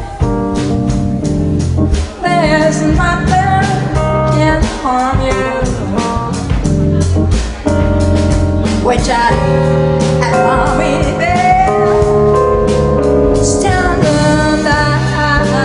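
Live Latin jazz combo of upright double bass, drum kit and electronic keyboard playing, with a woman singing into a microphone over it.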